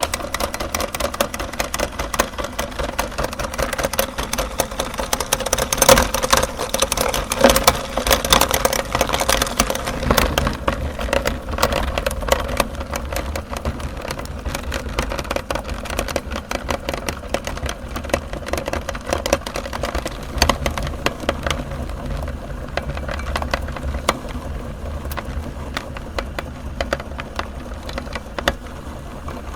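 Electric meat grinder starting abruptly and running with a steady motor hum, while chocolate bars crunch and crackle through it; the crunching is densest a few seconds in and thins out toward the end.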